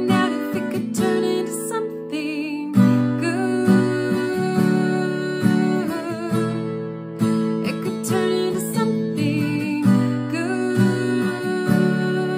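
A woman singing while accompanying herself on a strummed acoustic guitar, her held notes wavering with vibrato.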